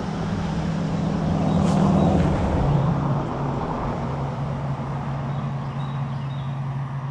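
A passing engine, a steady low hum that grows loudest about two seconds in, drops in pitch, then fades away.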